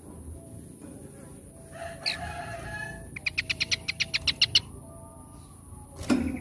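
Bird calls: a short call about two seconds in, then a fast run of about a dozen sharp, evenly spaced notes, roughly nine a second. A sharp click comes near the end.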